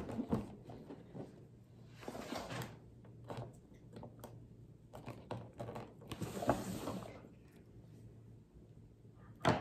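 LEGO set packaging being handled and opened on a table: scattered rustles of cardboard and plastic bags and light knocks, with one sharp click near the end.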